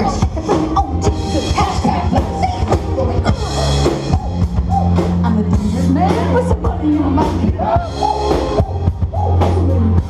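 Live band music with a singer, drums and bass, over the chatter of a crowd.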